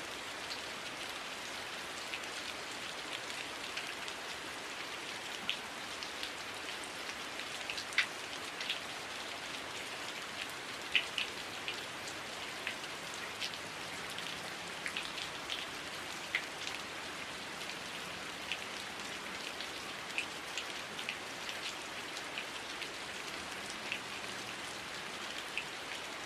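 Heavy rain falling steadily: an even hiss with many sharp individual drop impacts ticking through it at irregular moments.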